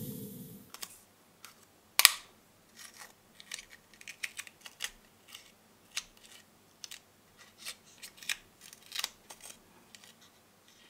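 Steel tweezers clicking and tapping against small plastic model-kit parts: a string of light, sharp, irregular clicks, the loudest about two seconds in. A fading airbrush hiss is heard at the very start.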